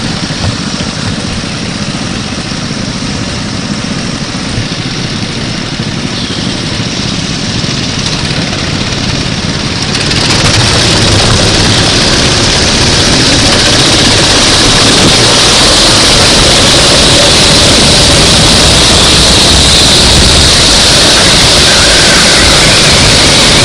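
Go-kart engine running during a race, a loud, dense, steady noise that jumps louder and hissier about ten seconds in.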